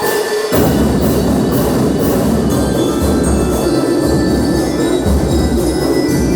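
Marching band playing: bell lyres ringing a melody over a steady beat of snare and bass drums, the bass drums coming in about half a second in.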